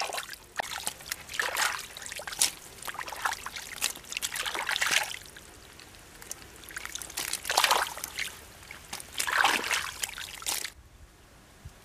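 Hands splashing and scooping through shallow muddy water while grabbing fish by hand. The sound is a run of irregular wet splashes and trickles that stops abruptly near the end.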